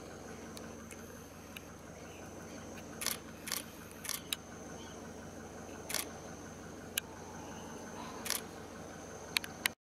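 Camera shutter clicks, about nine sharp clicks irregularly spaced starting some three seconds in, over a steady high drone of night insects.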